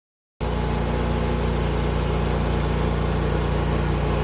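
Steady engine-like machine drone that switches on abruptly about half a second in and runs evenly, with a low hum and a thin high whine above it.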